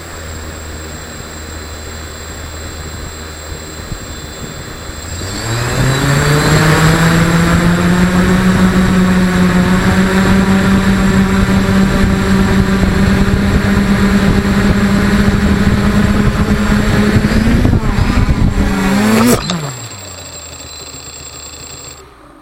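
A small motor runs at a low idle, then at about five seconds speeds up to a steady high-pitched drone that holds for about fourteen seconds, rises briefly and cuts off, leaving a quieter hum.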